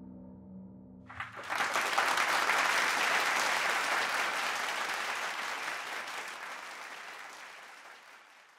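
The last held chord of the piano and saxophone rings out, and just after a second in a concert audience breaks into applause, which slowly fades away toward the end.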